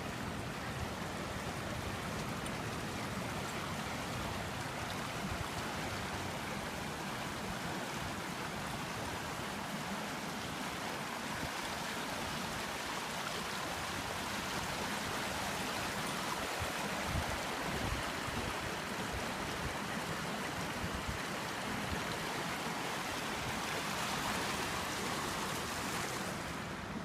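Runoff water rushing steadily along a small drainage channel, running high with rain and snowmelt.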